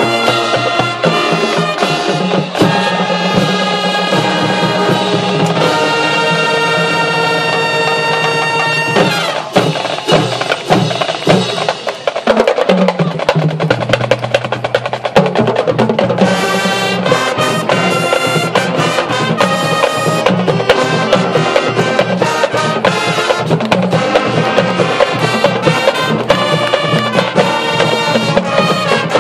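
Marching band playing: sustained brass chords at first, then the brass thins out about nine seconds in, leaving drum hits and low brass. The full band comes back louder around sixteen seconds with a steady percussion beat.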